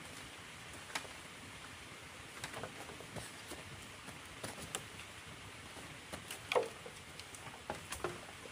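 Footsteps in rubber boots rustling and crunching through dry bamboo leaf litter, with scattered crackles and snaps, the sharpest about six and a half seconds in, over a steady background hiss.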